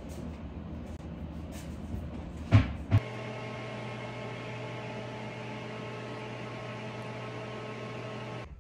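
Two sharp knocks, then a steady electrical appliance hum that starts suddenly about three seconds in and cuts off just before the end.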